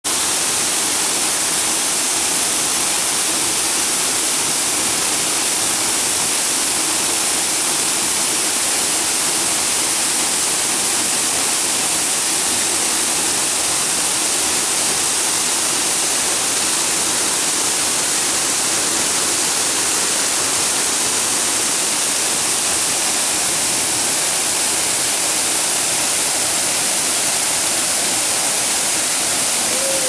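Waterfall crashing into its plunge pool, heard up close: a steady, loud, hissing rush of falling water.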